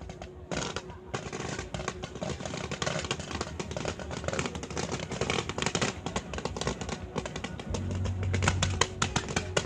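Fireworks crackling densely over a show, with music playing alongside; low steady notes come in near the end.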